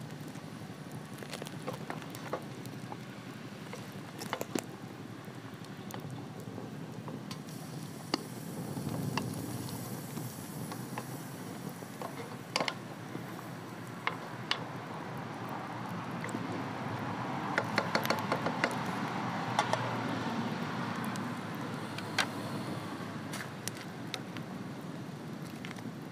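Pot of lamb broth bubbling on a wood-fired barrel stove, with scattered metal clinks from the ladle and lid; a quick run of clicks comes a little past the middle.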